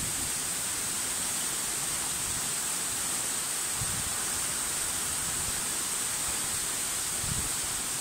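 Waterfall dropping from a height into a rock pool: a steady, even rushing hiss of falling water.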